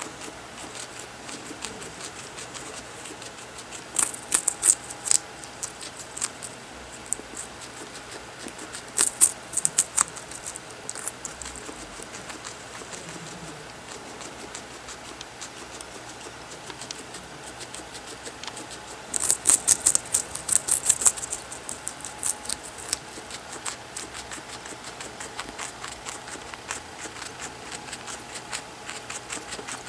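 Guinea pig gnawing and crunching a raw carrot held in a hand: quick runs of crisp bites in bursts, about four seconds in, around nine seconds, and longest around nineteen to twenty-one seconds, with lighter nibbling in between.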